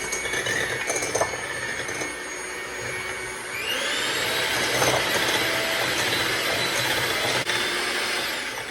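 Electric mixer beating egg whites: a steady motor whine that steps up to a higher speed about three and a half seconds in, then winds down near the end.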